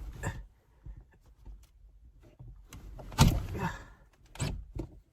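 A car window being opened a crack from inside, for ventilation in the cold: a few clicks and handling noises, with a louder mechanical bump and rattle about three seconds in and two shorter knocks near the end.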